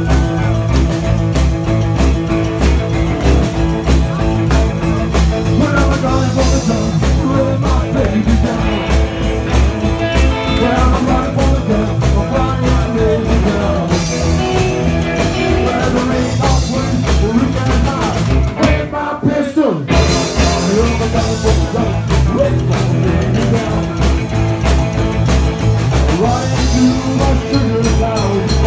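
Live rock and roll band playing: an upright double bass, an electric guitar and a drum kit, with a male singer, over a steady driving beat. About two-thirds of the way through, the band breaks off for about a second with a sliding fall in pitch, then comes straight back in.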